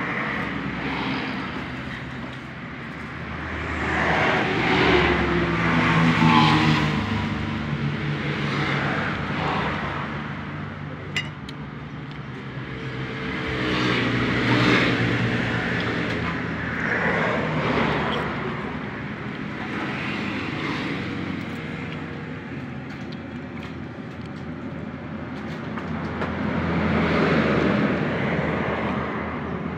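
Road traffic passing close by: vehicle engines swell and fade one after another, several times over, against a steady background rumble. There is a single sharp click about eleven seconds in.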